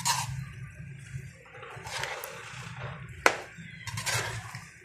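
Spatula stirring wet chicken and cauliflower in a metal pot, scraping and knocking against the pot, with a sharp clink about three seconds in.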